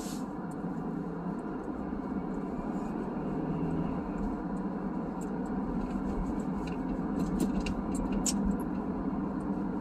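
Steady engine and road noise of a car being driven, heard from inside the cabin, with a few faint clicks in the second half.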